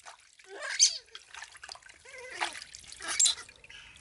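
Water splashing and trickling in a plastic basin as a hand scoops and pours it over a baby monkey, in several separate splashes.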